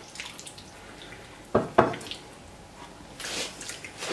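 Wet strips of raw beef liver squelching and sliding as they are pushed by hand off a wooden cutting board into a ceramic plate. About a second and a half in there are two sharp knocks close together, the board striking the plate, with a soft wet rustle near the end.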